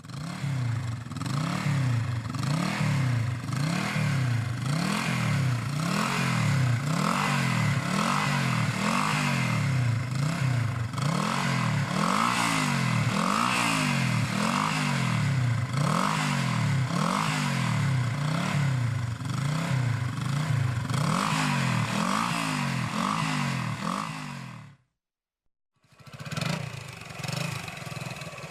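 Motorcycle engine revved up and down over and over in quick, even throttle blips, a little more than once a second. It cuts off about 25 seconds in, and after a second of silence another motorcycle engine recording starts.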